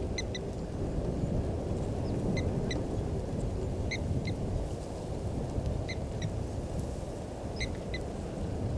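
A bird calling in short, high notes in pairs or threes every second or two, over a steady low rumble.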